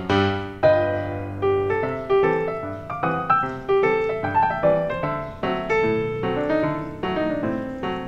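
Background piano music: a gentle run of struck notes and chords, each note fading before the next.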